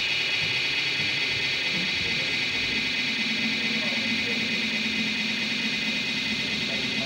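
Modular synthesizer playing a steady drone: a noisy high wash with a sustained low tone that comes in about three seconds in.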